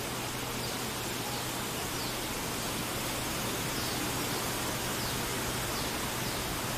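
River water flowing, a steady even rush, with faint short high chirps about once a second and a low steady hum underneath.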